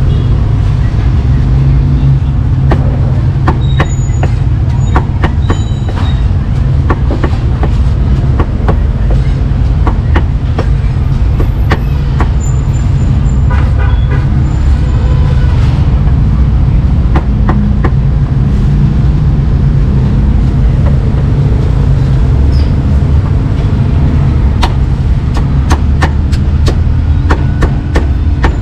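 Cleaver chopping meat on a cutting board: sharp knocks scattered throughout, with a quick run of chops near the end, over a steady low rumble of street traffic.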